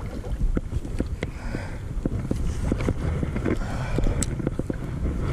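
Wind rumbling on the microphone over water lapping around a float tube, with scattered small ticks and splashes.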